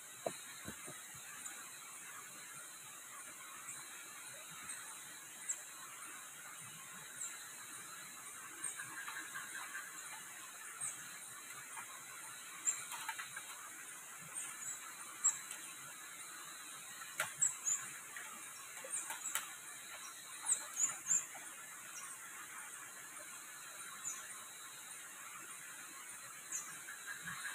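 Night insects chirping steadily, with scattered faint clicks and knocks as a plastic plate is rinsed in a stream and carried back over the rocks.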